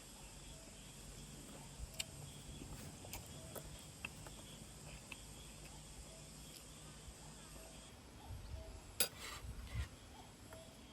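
Quiet cooking sounds: scattered light clicks and clinks of utensils and cookware over a steady low hum, with a sharper knock and clatter about nine seconds in.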